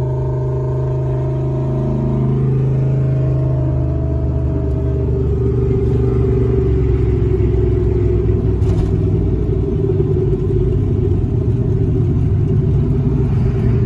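Turbocharged small-block Ford V8 running at a steady cruise, heard from inside the car's cabin as a steady low drone. About halfway through it turns rougher and slightly louder.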